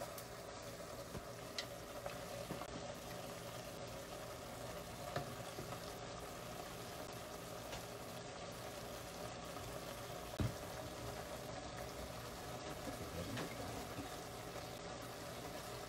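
Goat meat sizzling faintly and steadily in an open pressure-cooker pot, with a few light knocks.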